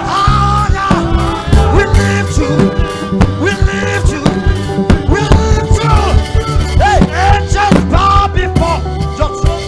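Worship music from a live praise band: a steady bass line and drum beat with a voice singing a bending melody over them.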